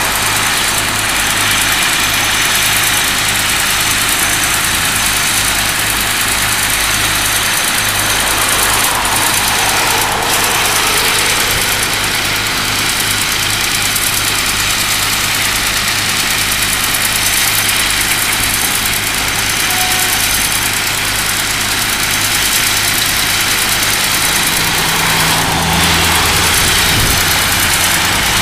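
Steady diesel engine noise from a Cat 311D LRR excavator and a Caterpillar tracked skid steer working. Road traffic swells past about ten seconds in and again near the end.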